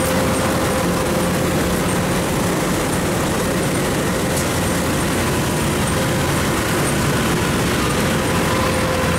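Engine of a small tracked crawler rice carrier running steadily as it drives along loaded with sacks of rice, with a constant hum held through the noise.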